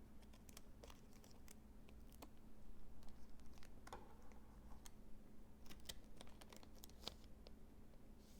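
Faint crinkling, tearing and clicking of a Pokémon booster pack's foil wrapper being opened by hand, busiest a few seconds in.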